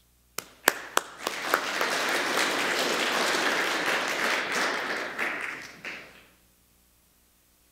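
Audience applauding: a few scattered claps build quickly into steady applause, which dies away after about five seconds.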